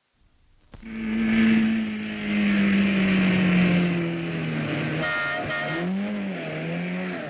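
A 1950s Alfa Romeo saloon's engine running under load, its note sliding slowly lower, with a brief tyre squeal about five seconds in and the engine note dipping and rising just after.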